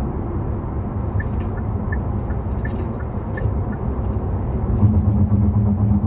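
Cabin noise of a BMW 5 Series GT 20d on the move: steady engine and tyre rumble, with a stronger, steadier hum for the last second or so.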